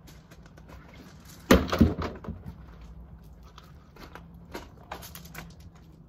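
Pieces of wood dropped and handled on a pile: two heavy wooden knocks close together about a second and a half in, then scattered lighter clicks and knocks.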